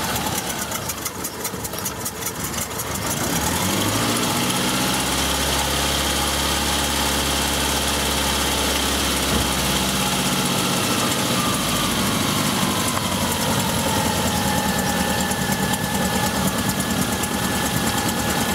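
A 2000 Saturn SL's overhead-cam four-cylinder engine running just after starting on a fresh set of spark plugs. For about three seconds it runs unevenly, then it picks up to a fast idle and, around twelve seconds in, drops and settles into a steady, smoother idle: it is taking a moment to adjust to the new plugs before running properly.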